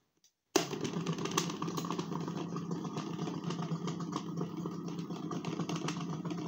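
Mini portable washing machine's spin basket running at its single spin speed: a steady motor hum with light rattling clicks, starting about half a second in.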